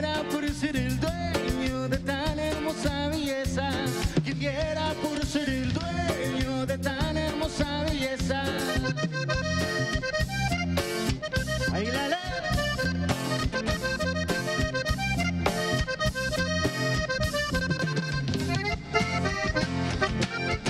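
Live band playing accordion-led Latin dance music over a steady beat, with no singing.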